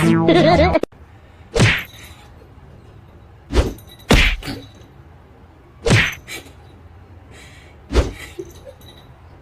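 Bouncy music with a springy boing cuts off just under a second in. Five separate thumps or knocks follow over a quiet background, about one every two seconds, with two of them close together.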